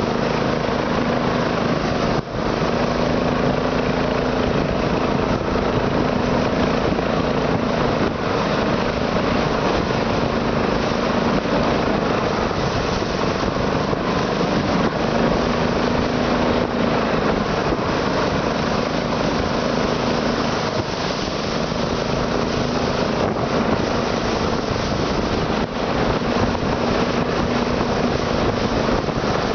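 Internal combustion engine running steadily.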